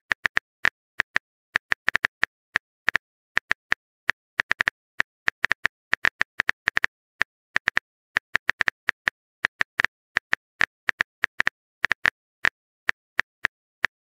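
Phone keyboard typing sound effect: a fast, uneven run of short sharp clicks, about four a second.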